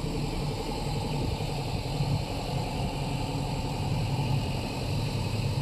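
Small motorboat's engine running steadily while under way, with wind blowing across the open deck.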